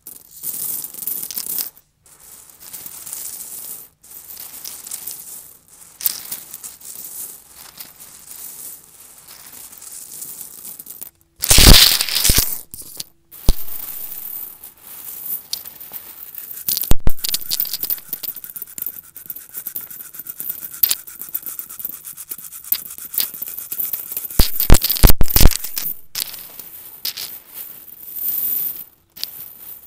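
Vacuum cleaner sucking up small debris: a thin airy hiss in stop-start stretches, with several loud sudden bursts as bits of debris are pulled in.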